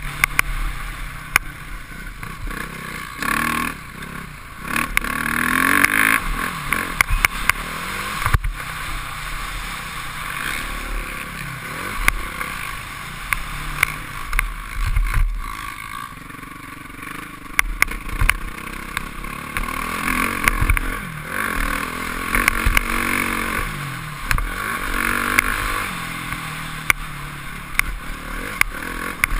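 Motocross dirt bike engine racing, its revs rising and falling repeatedly through the gears, heard from a helmet-mounted camera with wind rush on the microphone. Frequent sharp clicks and knocks run through it.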